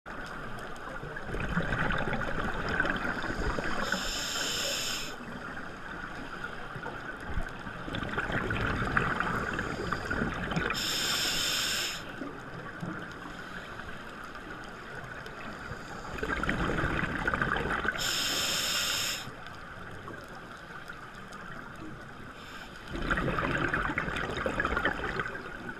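Scuba diver breathing through a regulator underwater. Each breath is a rush of bubbling exhalation lasting about three seconds, then a short hiss of inhalation, with a quiet pause before the next. The breaths come steadily about every seven seconds, four times.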